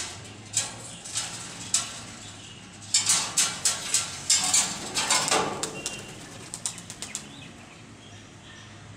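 Birds' wings flapping in a run of quick, irregular flutters, densest from about three to five and a half seconds in and dying away after about seven seconds; a few faint chirps follow.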